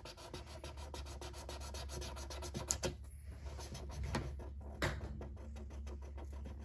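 Felt-tip marker rubbing back and forth on paper laid on cardboard, a quick run of scratchy colouring strokes, with a couple of louder ticks midway.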